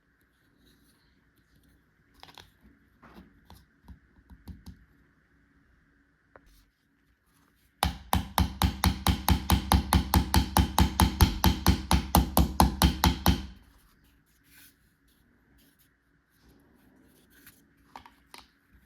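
Battery-powered toy electric drill switched on, running for about six seconds with a loud, rapid, even rattle of about five clicks a second. It starts and stops abruptly. Before and after, quiet clicks and rustles of plastic toy tools being handled.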